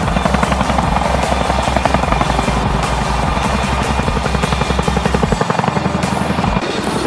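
Two CH-47 Chinook tandem-rotor helicopters hovering low, their rotors beating in a rapid, steady rhythm.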